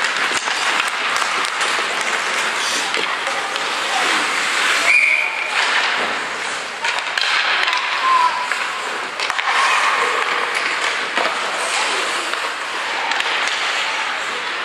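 Ice hockey play on an indoor rink: a steady scraping of skates on the ice, with scattered clacks of sticks and puck. A short high tone sounds about five seconds in.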